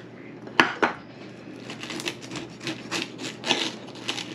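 Table knife sawing through the crisp crust of a fried pie on a plate. Two sharp clicks of the knife on the plate come about half a second in, then repeated rasping strokes, about three a second, as the crust is cut.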